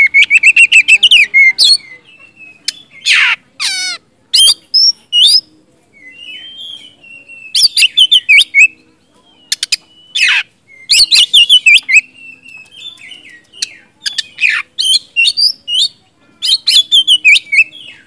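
Oriental magpie-robin (kacer) singing loudly in full 'gacor' song: it opens with a fast run of repeated notes, then moves through varied whistles, trills and sweeping phrases with short pauses between them. This is the kind of song played to provoke other magpie-robins into answering.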